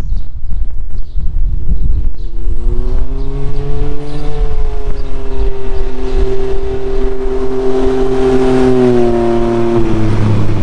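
Can-Am Ryker three-wheeler with an aftermarket BKD exhaust making a faster drive-by: its engine note rises over the first few seconds, holds steady as it closes in, then drops in pitch as it passes near the end. Heavy wind noise on the microphone runs underneath.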